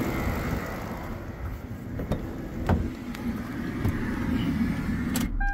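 Lexus LS400's 4.0 V8 idling, with a few light clicks, then switched off near the end, the running noise cutting out suddenly.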